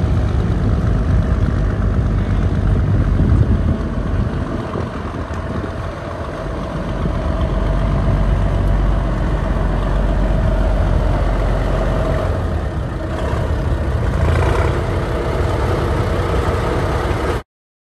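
Naturally aspirated Cummins NH230 (small-cam 855) diesel engine of a 1971 International M412-70 truck, running as the truck drives slowly toward the camera. The engine sound drops a little about six seconds in, then grows louder again as the truck comes closer.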